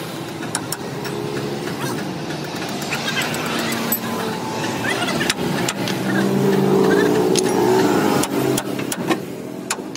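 A vehicle engine running, getting louder for a couple of seconds past the middle before easing off, with scattered sharp knocks.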